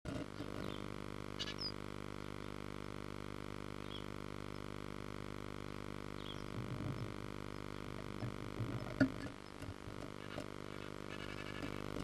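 Steady electrical hum from the nest-box camera's audio, with scratching and soft knocks from a great tit moving on the nest about halfway through and again near nine seconds, where one sharp click is the loudest sound. A few faint high peeps come through early on.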